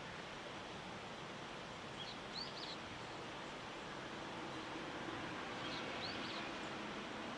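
A small bird giving short, high chirps in two brief groups, about two seconds in and again about six seconds in, over a steady background hiss.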